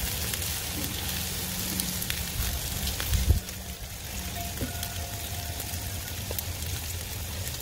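Burger patties and buns frying on a hot Blackstone steel griddle: a steady sizzling hiss, with one dull thump about three seconds in.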